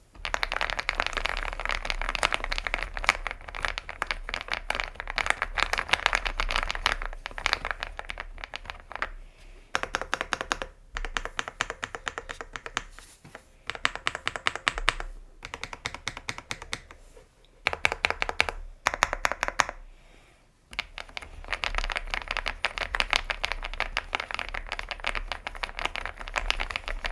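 Typing on an Aula F99 mechanical keyboard with Leobog Star Vector switches: fast, dense keystroke clacks in bursts, with short pauses between runs of typing.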